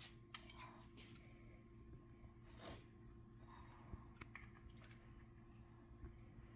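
Near silence: a steady low room hum with a few faint, soft clicks.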